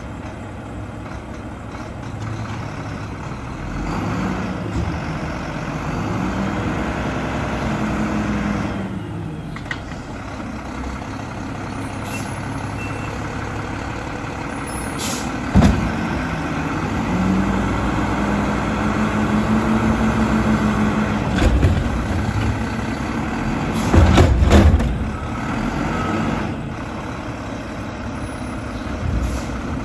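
Mack LR front-load garbage truck with an Amrep body, its engine revving up twice to drive the hydraulics as the front arms pick up a steel dumpster and raise it over the cab. Sharp metal clanks come about halfway through and again near the end.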